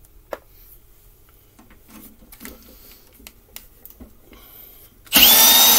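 Cordless drill with a socket on it, running at full speed to back a bolt out of a push-mower deck; its motor whine rises slightly and then holds. Before that, about five seconds of quiet clicks and handling of the tool and metal parts.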